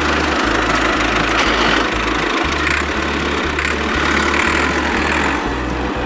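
A loud, steady engine-like running noise layered over background music with a regular bass beat; the noise stops right at the end.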